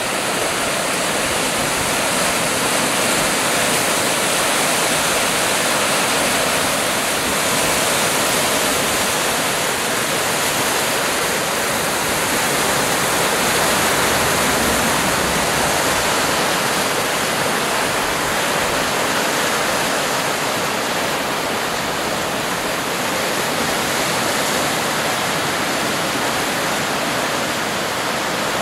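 River in flood rushing and churning below: a steady, even rush of fast-moving water.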